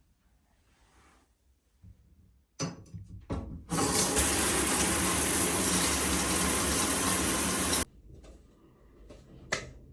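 Water running hard and steadily for about four seconds, after a few knocks and clicks. It cuts off suddenly.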